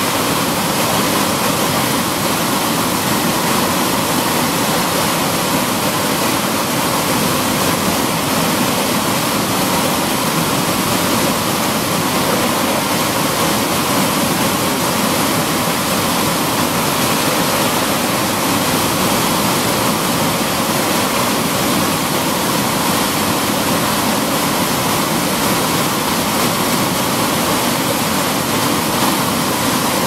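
Whitewater of a river cascade pouring and churning through a narrow rock channel: a loud, steady rush of water with no change.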